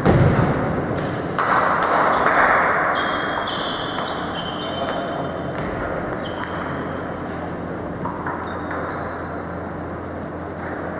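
Table tennis balls clicking and pinging as they bounce off tables, bats and the floor: many short, sharp bounces throughout, ringing in a large echoing hall. A broad rushing noise swells and fades over the first few seconds.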